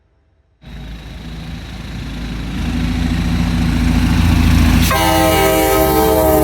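Amtrak EMD F40PH diesel locomotive approaching, its engine and wheels rumbling louder and louder after starting suddenly just after the start. About five seconds in its Nathan K5LA five-chime air horn sounds a loud chord that holds on.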